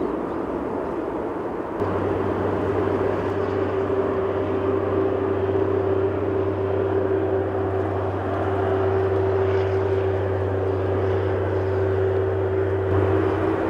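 Jet engines of a Boeing 767-300ER airliner landing and rolling out. The sound changes abruptly about two seconds in. After that a steady low hum and a steady mid-pitched tone carry on under the engines' rush.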